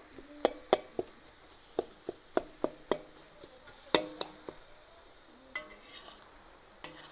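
Metal spatula clanking and scraping against a large metal wok during stir-frying: a dozen or so sharp clinks in the first four and a half seconds, the loudest about four seconds in, then only a few. A faint sizzle of frying runs underneath.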